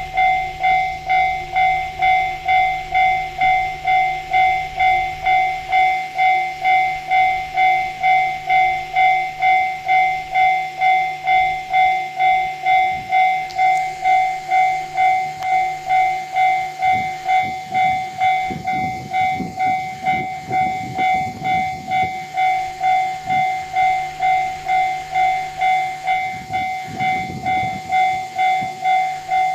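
Level-crossing warning bell ringing evenly at about two strikes a second. Partway through, a train passes over the crossing with low rumbling and wheel clicks under the bell, twice for a few seconds.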